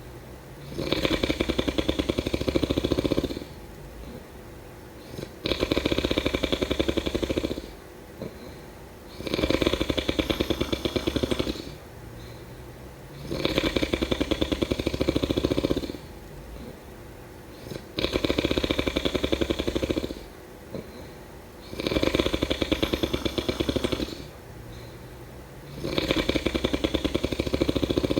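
A person snoring in a slow, regular rhythm: a loud, rattling snore of about two and a half seconds on every breath, about every four seconds, with quieter breathing in between.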